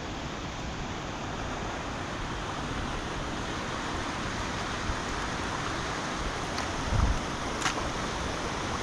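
Steady rush of a fast-flowing beck running toward a waterfall, with a low thump about seven seconds in.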